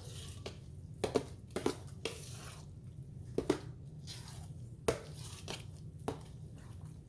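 A spoon knocking and scraping in a pan of broth-soaked cornbread while it is stirred: a few sharp clinks, several in quick pairs, with softer scrapes between.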